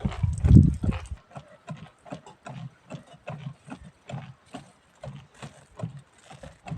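A loud low rumble for about the first second, then a steady run of soft low thuds, about two to three a second.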